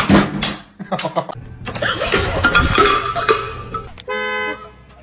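A car horn sounds once, briefly, about four seconds in, after a few seconds of loud, jumbled noise.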